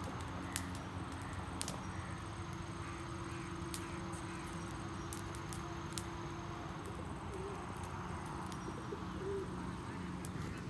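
Faint bird calls over a steady low background din, with a few sharp clicks.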